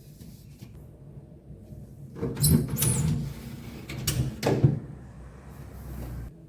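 Refrigerator fittings being handled during cleaning: a few sharp knocks and short squeaky scrapes, bunched together about two seconds in.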